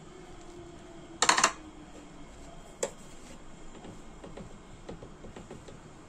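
Chicken rice porridge cooking in a clay pot on a gas burner: a faint steady hiss with soft scattered pops. About a second in comes a quick burst of sharp clicks, the loudest sound, and one more click near three seconds.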